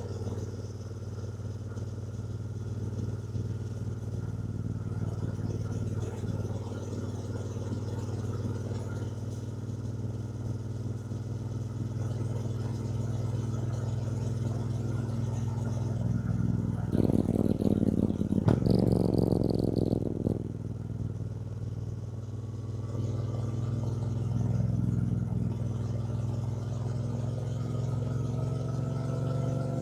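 2024 Triumph Bonneville T120's 1200 cc parallel-twin engine running at a steady cruise while riding. It gets louder and rougher for a couple of seconds about two-thirds through, and its pitch rises near the end as the bike speeds up.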